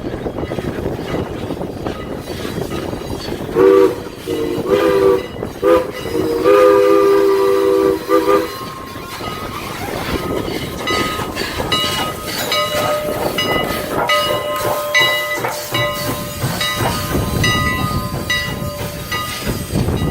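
Canadian National E-10-a 2-6-0 steam locomotive #89 sounds its steam whistle as a chord, in several blasts: short ones at first, then a long one and a final short one. The train then rolls on, with wheels clicking over the rail joints and a thin, steady wheel squeal.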